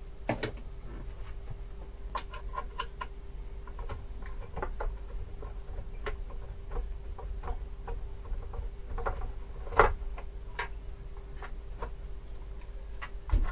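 Irregular light metallic clicks and taps of a screwdriver and small metal parts as a small piston oil pump is unscrewed and taken apart, with a sharper knock about ten seconds in and another near the end. A faint steady hum runs underneath.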